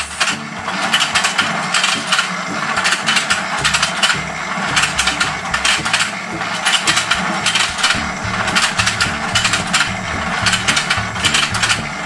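Battery-powered toy fishing game running: its motor turns the plastic board and gears with a steady, rapid clicking and clattering.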